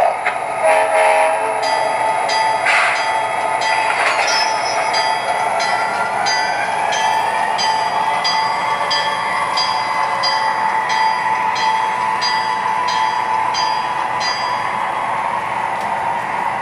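Sound system of an MTH CSX SD40-2 model diesel locomotive as it pulls away: the locomotive bell rings about one and a half times a second over a steady diesel engine drone. The engine pitch rises as it notches up, and the bell stops near the end.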